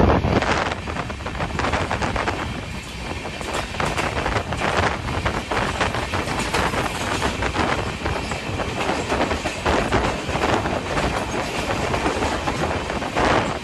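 Train running at speed, its wheels clattering over the rail joints in a steady stream of sharp clicks over a continuous rumble.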